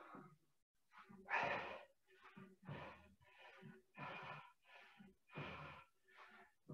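A man breathing hard and fast from the effort of swim-cord pulls, a quick, even run of faint puffs at about one and a half breaths a second.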